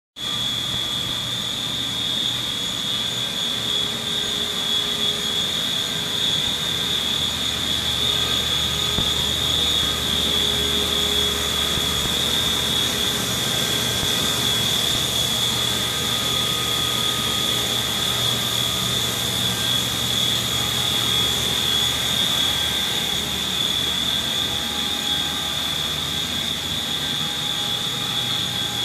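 Haas VF-1050 CNC vertical machining center running: a steady mechanical whir with a constant high-pitched whine over a low hum, unchanging throughout.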